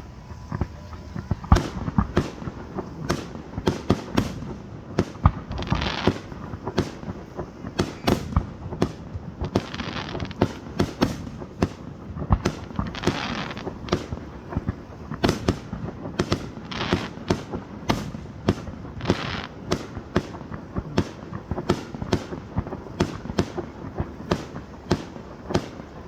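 Fireworks going off in a dense barrage: sharp bangs several times a second, with stretches of crackling between them.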